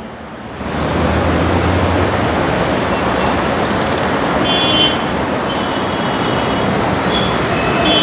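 Heavy road traffic passing, a loud steady wash of noise, with a deeper engine rumble for the first couple of seconds.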